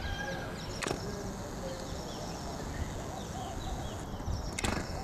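Outdoor ambience: faint chirps of small birds over a steady low background noise, with two sharp clicks, one about a second in and one near the end.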